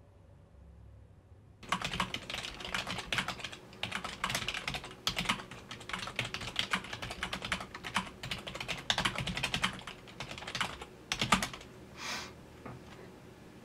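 Fast, continuous typing on a computer keyboard, a quick run of key clicks, ending with one louder knock near the end.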